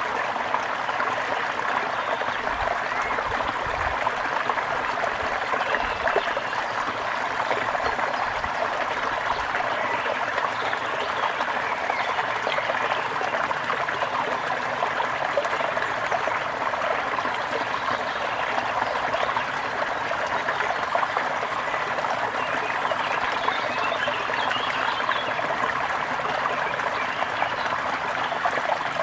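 A brook running steadily, an even rush of flowing and trickling water.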